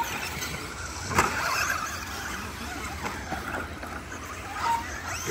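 Several 1/10-scale electric short-course RC trucks racing, their motors whining and rising and falling in pitch as they throttle on and off over the track. A sharp knock stands out about a second in.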